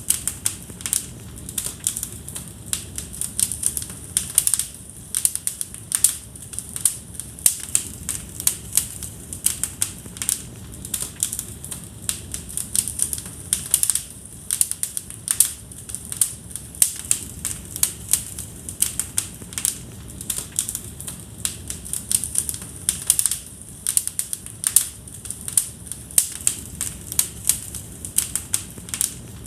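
Wood fire burning in a fireplace, crackling: dense, irregular sharp snaps and pops, several a second, over a steady low rumble of the flames.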